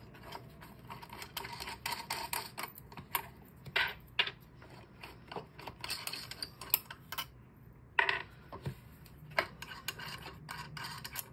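Irregular small metallic clicks and light scrapes as fingers unscrew the four screws holding the burr plate under a Wug2-83a coffee grinder's burr chamber; the grinder's motor is not running.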